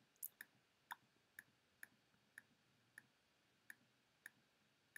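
About ten faint, sharp clicks at uneven intervals of roughly half a second, spacing out a little toward the end, over near silence.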